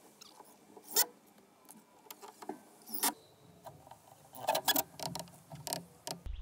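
Light handling clicks, taps and rattles of a cordless drill and screws on a wooden 2x4 frame. There is a sharp knock about a second in and a quick cluster of clicks toward the end, with no drill motor running.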